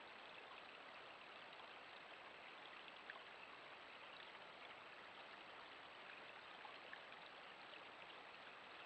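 Faint, steady rush of water running at a beaver dam, with a thin high-pitched whine held underneath and a couple of soft ticks.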